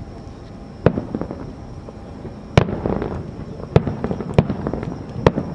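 Aerial fireworks bursting: five sharp bangs at uneven intervals over a few seconds, each with a brief tail after it.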